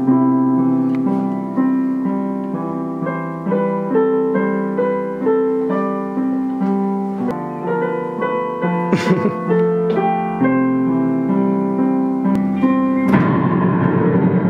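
Solo digital piano playing a melody over held chords, one note after another, with the sound growing fuller about a second before the end.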